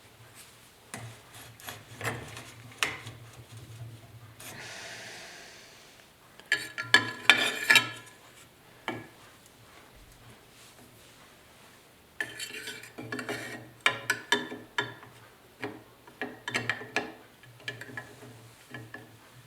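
Clicks, scrapes and rubbing of metal motorcycle parts being handled and fitted by hand, in several bursts, with a short hiss about five seconds in.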